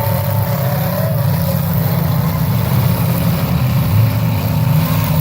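Engines of demolition derby cars running together in a loud, steady low rumble.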